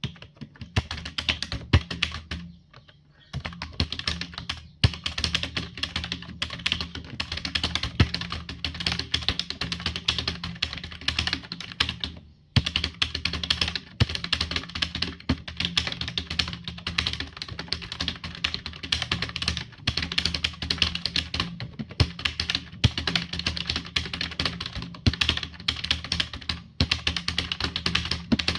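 Fast, continuous typing on a computer keyboard, a dense stream of key clicks that stops briefly about two and a half seconds in and again about twelve seconds in, over a low steady hum.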